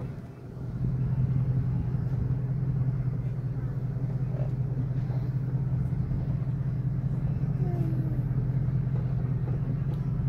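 Steady low rumble of a car driving, heard from inside the car, with engine and road noise; it dips briefly in the first second, then holds steady.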